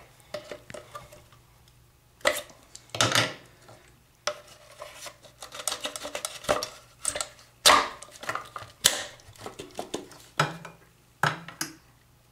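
Irregular clicks, clunks and knocks of a toilet fill valve's plastic parts being fitted back together and set into the tank, with a few sharper knocks spread through.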